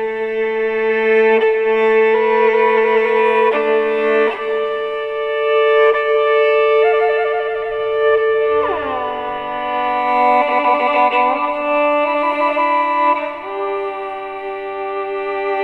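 Recorded music of a cello with morin khuur (horse-head fiddle), bowing long sustained notes with vibrato and a sliding pitch change about eight seconds in, played back through a Harman Kardon custom speaker wired in series with a B&O cast-aluminium 1.75-inch speaker.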